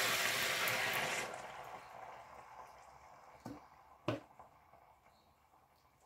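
Sauce sizzling in a hot pan quiets down as liquid cream is poured in from a carton. Two sharp knocks come in the second half.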